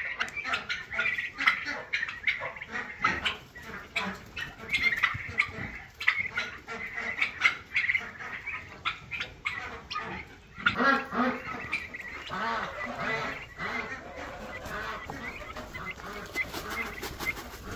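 Young turkeys and other barnyard fowl calling over each other in many short, overlapping peeps and squawks, with some louder, lower calls a little past the middle.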